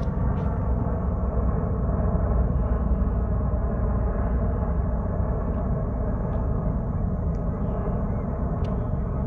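V-22 Osprey tiltrotor flying past, its proprotors and engines making a steady, many-toned drone over a low rumble.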